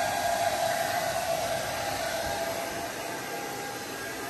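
Handheld blow dryer running steadily, a hiss with a steady hum, blowing on a puppy's wet fur. It gets a little quieter about three seconds in.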